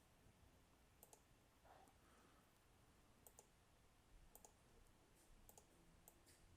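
Near silence with faint, sharp clicks every second or so, several in quick pairs.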